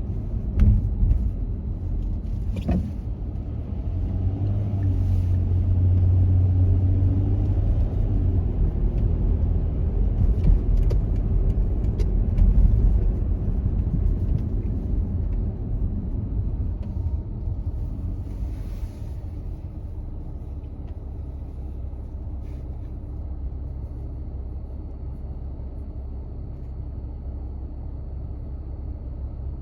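A car driving, with a steady low rumble of road and engine noise and a few faint clicks. It is louder in the first half and settles to a quieter steady level about two-thirds of the way through.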